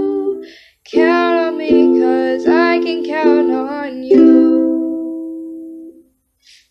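A girl singing with a ukulele strumming chords beneath her, ending on a last strummed chord that rings out and fades away over about two seconds.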